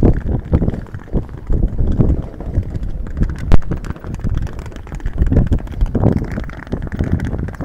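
Electric intercity train's wheels knocking over rail joints and points as it rolls slowly into the station: an irregular clatter of low thumps, with one sharp click about three and a half seconds in.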